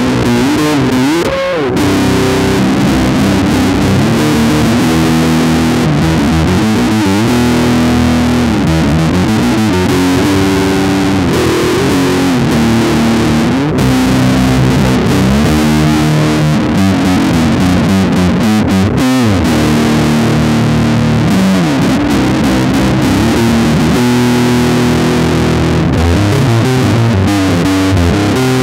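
Freshly strung four-string electric bass played fingerstyle in a fast metal riff, a busy run of low notes with several slides up and down the neck.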